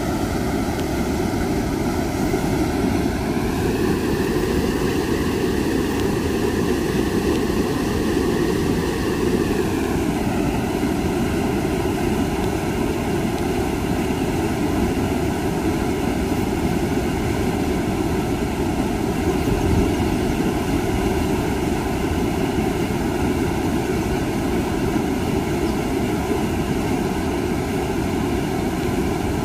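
Steady, loud rush of flowing water, a continuous noise with no distinct strokes or tones.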